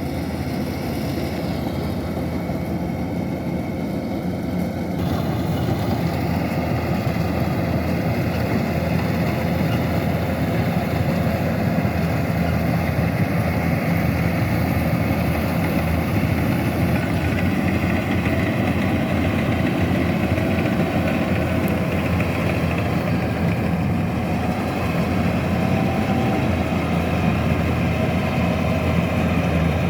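Kubota DC-105X combine harvester's diesel engine running steadily under load while harvesting rice, growing louder about five seconds in.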